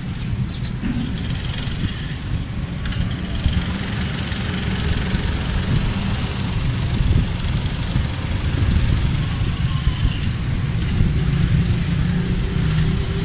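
Steady low outdoor rumble.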